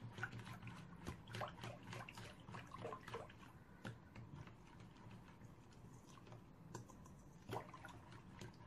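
Faint, irregular clicking and scraping of a whisk stirring a lumpy mixture in a bowl, over a steady low hum.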